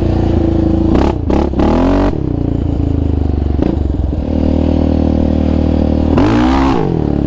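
A 2019 Yamaha Raptor 700R sport quad's single-cylinder four-stroke engine, fitted with an aftermarket Monster exhaust, running under way on a dirt trail. The revs rise and fall quickly about a second in and again near the end.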